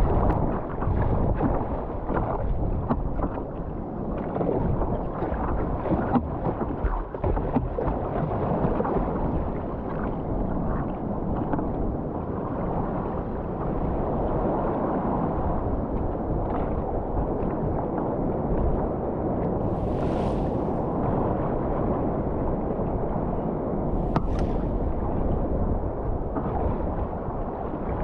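Strong gale wind buffeting the microphone over the rush of breaking waves around a sea kayak: a steady, noisy rushing with gusts, a brief higher hiss about twenty seconds in and a sharp click a few seconds later.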